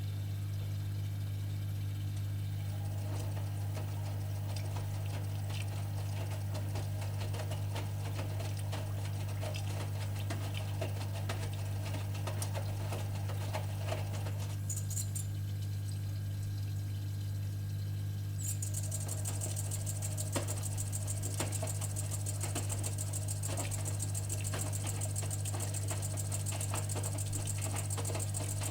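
AEG Öko-Lavamat 85769 washing machine in its wash phase, over a steady low hum: the drum turns with water and laundry sloshing and clicking, stops for a few seconds about halfway, then turns again with a steady high motor whine.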